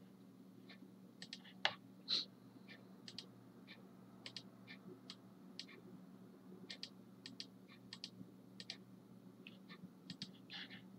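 Faint, irregular clicks of a computer mouse and keyboard, a few dozen scattered taps, over a low steady electrical hum.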